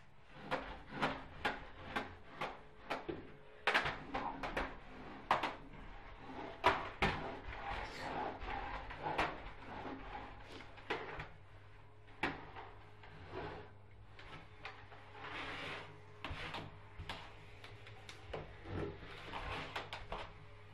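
Vacuum cleaner floor head clattering and knocking on the carpet and against the walls as it is pushed about and set upon by a dog. Sharp knocks come about twice a second at first, then denser and more irregular, over a faint steady low hum.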